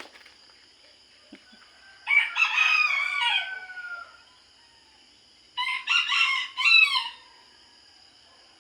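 Rooster crowing twice: one long crow about two seconds in, and a second one a few seconds later.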